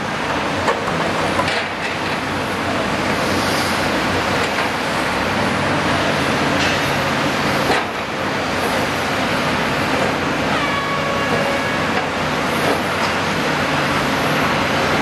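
Caterpillar 320D L excavator's diesel engine running steadily as it digs and swings mud, over a dense background rumble of city traffic. A few sharp knocks stand out, the loudest about halfway through, and a brief high tone sounds for about a second and a half near the two-thirds mark.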